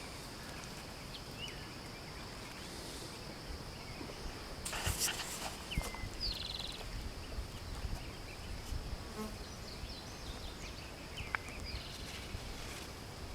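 Insects droning steadily, with bees buzzing among the blossoms. A few short bird chirps come through, and there is a brief rustling burst about five seconds in.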